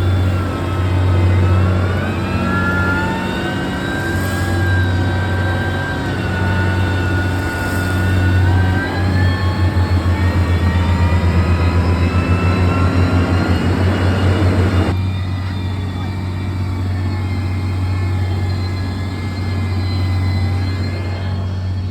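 Heavy construction machine's diesel engine running steadily, with a whine that rises and falls in pitch. About nine seconds in, a fast even throbbing of roughly six beats a second sets in, and at about fifteen seconds the whine and the higher sounds cut off abruptly, leaving the low engine hum.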